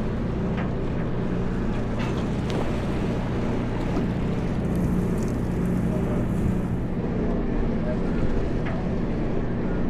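Steady low hum of a party fishing boat's engine running, even throughout, with a few light clicks.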